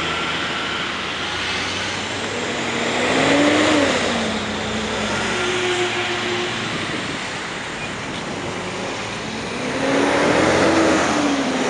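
Road traffic passing close by: car and truck engines and tyres in a steady rush, swelling as vehicles go by about three seconds in and again near the end, with engine pitch rising and falling.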